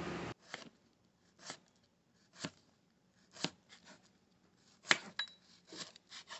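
Kitchen knife chopping garlic cloves on a cutting board: single sharp knocks about once a second, coming a little quicker near the end.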